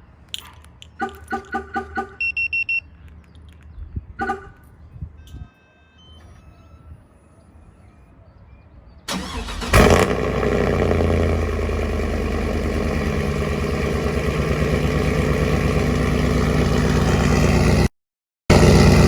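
A run of quick electronic beeps from a truck, then about nine seconds in the pickup truck's engine starts and idles steadily.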